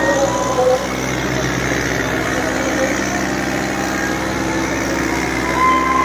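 Tractor diesel engine running steadily close by, with a few brief crowd shouts over it.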